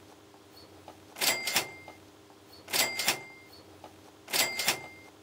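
A hand cutting tool snipping rubber fuel hose into short lengths, three cuts about a second and a half apart. Each cut is a double snap followed by a brief ringing tone.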